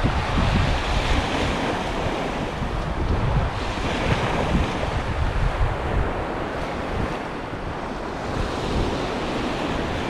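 Sea waves breaking and washing on a beach, swelling and easing every few seconds, with wind buffeting the microphone in a low rumble.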